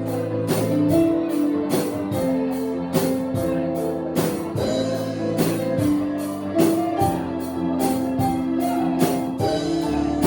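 Instrumental band music with a steady drum-kit beat under held guitar and keyboard chords, with no singing.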